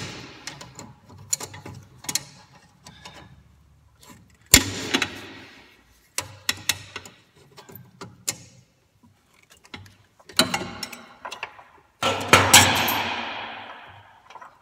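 Hand tools clicking and scraping on the rear brake hose bracket as the hose's retainer clip is pried off: a string of sharp metallic clicks and clanks, loudest about four and a half seconds in and in a clatter near the end.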